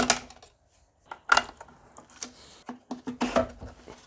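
Plastic clicks and rattles of a multi-pin wiring-harness connector being unlatched and worked loose from a car's ABS control module. The clicks come unevenly, the sharpest about a second in and a cluster near the end.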